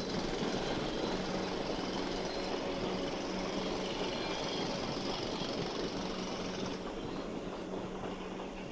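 Diesel locomotive engine running steadily, a continuous drone with a low hum.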